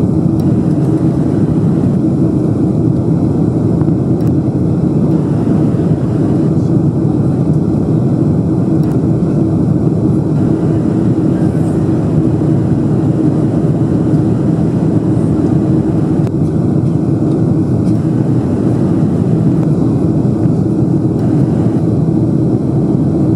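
Boeing 747-400 jet engines and rushing air, a loud steady noise with a low hum running under it, as the airliner climbs after takeoff.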